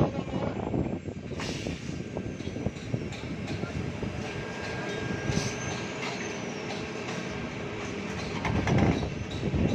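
Concrete pump machine running on a slab pour: steady mechanical noise with irregular knocks and a thin steady high tone over it.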